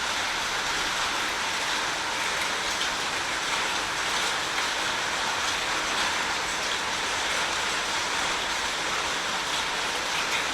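Steady, even rush of water, unbroken and unchanging in level.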